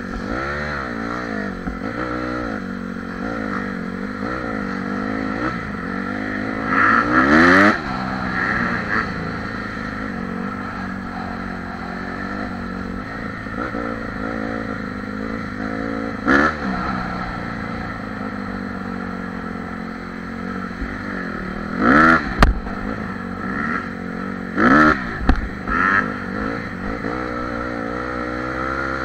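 Honda CRF dirt bike's single-cylinder four-stroke engine being ridden, its pitch rising and falling repeatedly with throttle and gear changes and a long rising rev about seven seconds in. Several brief louder bursts break in, with one sharp knock a little past twenty seconds.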